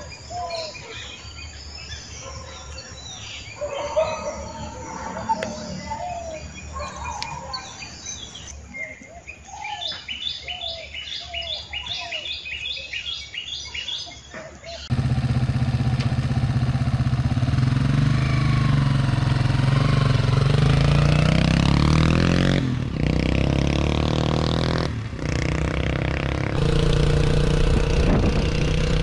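Birds chirping and singing for about fifteen seconds, then a sudden switch to a Yamaha Serow 225's air-cooled single-cylinder four-stroke engine running, its pitch rising and falling as it revs, with two brief drops in the sound.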